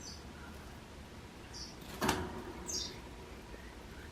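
Ringneck parrot giving short, high, falling chirps, three in all. A single sharp knock about two seconds in is the loudest sound.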